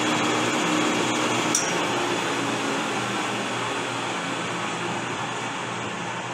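Metal lathe running steadily while a turning tool cuts down the thread tenon of a stainless steel rifle barrel. There is a brief high squeak about a second and a half in, and a hum in the machine noise drops away at the same moment.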